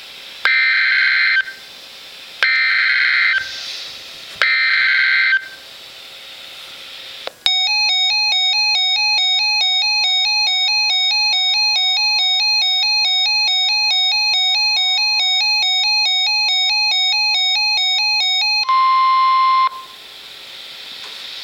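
Emergency Alert System broadcast on NOAA Weather Radio: three short bursts of screechy digital SAME header data about a second apart, then a long electronic alert tone rapidly alternating between pitches. It ends with a steady attention tone lasting about a second.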